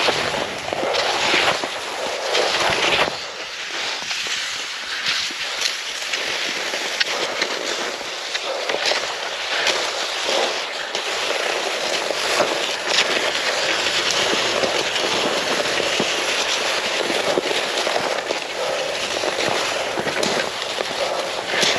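Cross-country skis and poles scraping and crackling steadily over hard, crusty snow.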